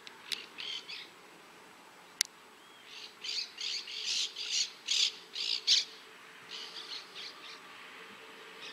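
A bird calling in rapid runs of short, scratchy notes, about eight in a row over three seconds in the middle, with shorter groups before and after. Two sharp clicks are heard early on.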